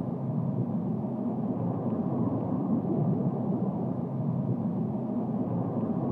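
Steady low rumble of working barge machinery.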